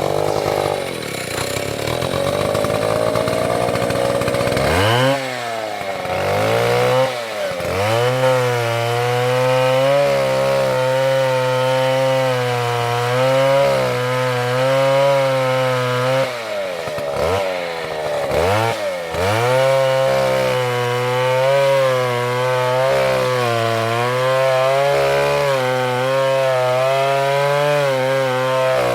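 Two-stroke chainsaw cutting wood at full throttle. The engine note wavers under load, and several times it drops away briefly and revs back up as the cut goes on.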